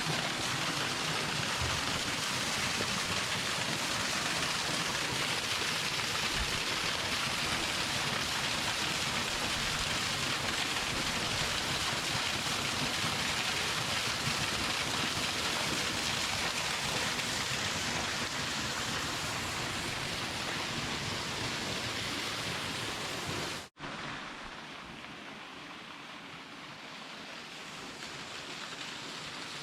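Waterfall rushing with a steady hiss of falling water. About three-quarters of the way through the sound cuts out for an instant, then the rushing water carries on quieter and duller.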